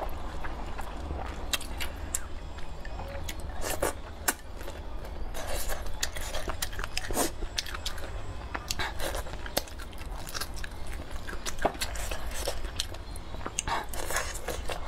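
Close-miked chewing and biting of rice noodles and braised pig trotter, with many short, wet mouth clicks and smacks scattered throughout.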